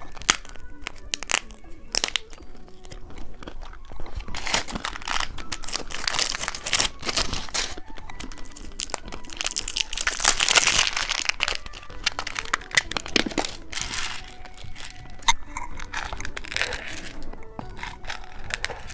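Crinkling and tearing of a plastic candy wrapper being opened close to the microphone, with scattered sharp clicks and rustles. A couple of longer stretches of crackling come about a third and halfway through.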